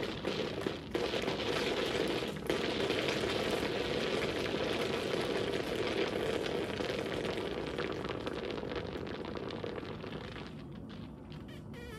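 Laboratory model geyser erupting: a few sharp knocks in the first seconds, then from about two and a half seconds in water surging up the tube and splashing into the clear basin on top in a dense rush that dies down near the end.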